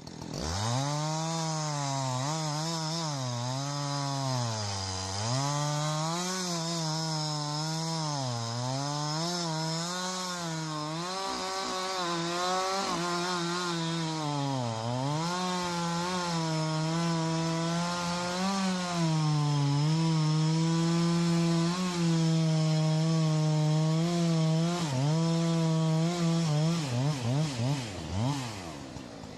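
Chainsaw cutting wood, its engine pitch sagging again and again as the chain bites and picking back up. Later it holds a steadier, higher pitch, and near the end it gives a few short throttle blips.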